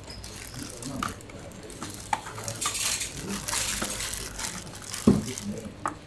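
Small metal parts and tools clinking and clattering as they are handled, with scattered light clicks and one sharper knock about five seconds in.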